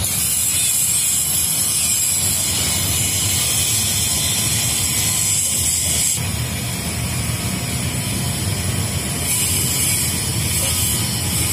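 Steady outdoor street noise of passing traffic, with a high hiss over it that stops about six seconds in and comes back briefly near the end.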